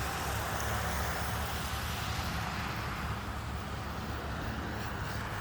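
Steady hiss of heavy rain falling, with a low rumble underneath.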